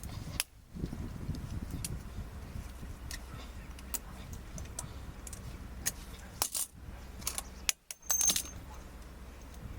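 Light metal clinks and rattles from hand tools or sockets being handled, with a louder cluster of clinks about eight seconds in, over a steady low rumble.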